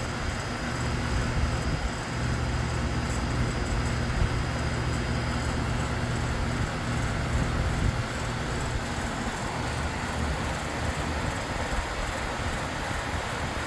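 Trane central air-conditioning condensing unit running steadily: a low compressor hum under the rush of the condenser fan. The unit is being topped up with R-422B refrigerant because it is low on charge, and its pressure is climbing.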